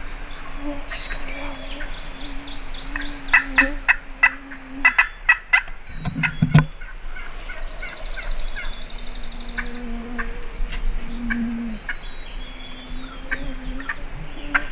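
Wild turkey calling: a quick run of sharp, evenly repeated notes in the middle, with scattered fainter calls around it and a single low thump just after.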